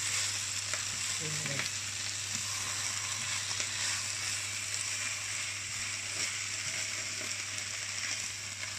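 Sliced potatoes, ham and onions frying in oil in an enamel frying pan, stirred with a spatula: a steady sizzling hiss with a few light clicks of the spatula against the pan, over a low steady hum.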